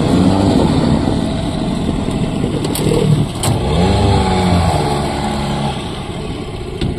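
Yamaha outboard motor running and being throttled while the canoe is backed in reverse; its pitch rises and falls in the middle, then drops back and quietens a little near the end.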